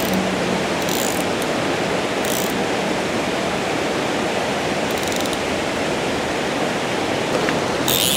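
Rushing river current, with short bursts of a fly reel's drag clicking as a big trout pulls line off it: briefly about a second in, again around five seconds, and for longer near the end.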